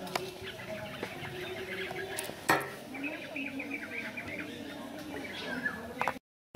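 Small birds chirping in a busy stream of short, quick calls, thickest in the middle of the stretch, with one sharp knock about two and a half seconds in. The sound breaks off abruptly just before the end.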